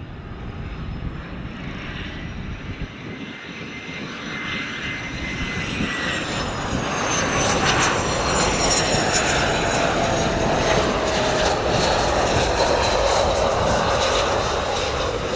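Gulfstream business jet's twin rear-mounted turbofans on landing approach, growing steadily louder. Its high whine drops in pitch about six seconds in, then gives way to a steady loud rush as the jet passes and touches down.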